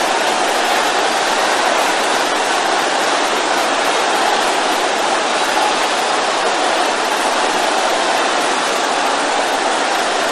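A large congregation praying aloud all at once, many voices shouting prayers together that blend into one steady, dense wash of sound.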